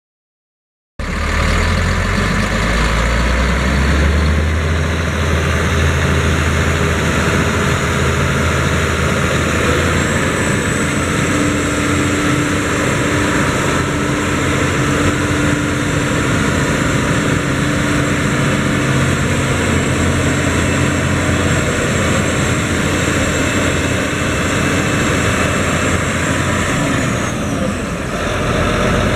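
John Deere 9530T track tractor's 13.5 L six-cylinder turbo diesel running steadily, a deep rumble with a thin high whine over it. The whine dips in pitch briefly near the end.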